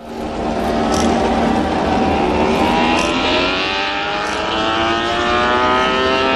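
Yamaha MotoGP bike's inline-four engine running on the pit-lane stand, its revs climbing slowly and steadily, with a few short high crackles.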